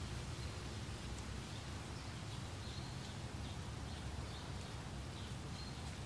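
Meadow ambience: steady wind with a low rumble, and faint, short, high bird chirps repeating about every half second.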